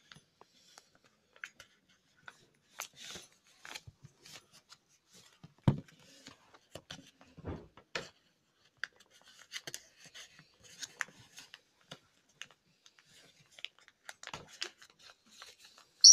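Folded paper rustling and crinkling in short, scattered bursts as hands crease and tuck together the two units of an origami ninja star, with a couple of soft taps against the wooden table about six and seven and a half seconds in.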